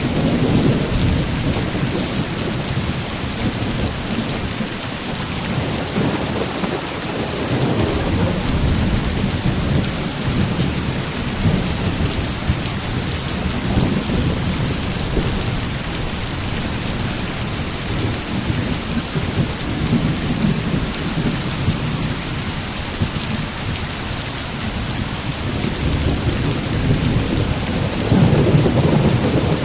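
Heavy rain falling steadily with thunder rumbling, swelling about a second in and again near the end.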